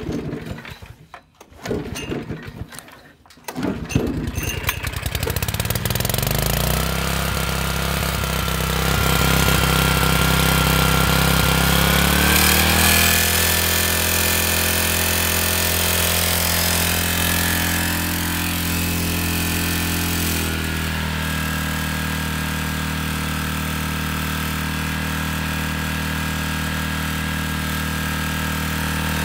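Generac 4000-watt portable generator being pull-started on half choke: rope pulls, then the engine catches about four seconds in, speeds up and settles into a steady run. Its pitch steps up about 13 seconds in and its tone changes again about 20 seconds in.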